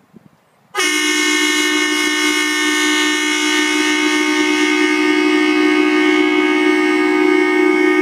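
Horn Blasters Rocker 2 air train horn sounding one long, steady, loud chord that starts suddenly about a second in and holds without a break: a full 2-gallon air tank being dumped through the horn.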